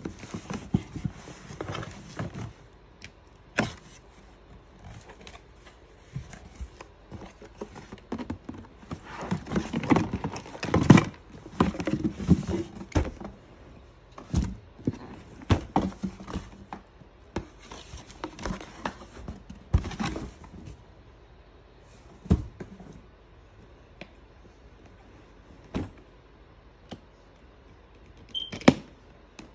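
Cardboard shipping box rustling and scraping while a plastic storage bin is pulled out and handled, with scattered knocks and thuds of the bin against the box and floor.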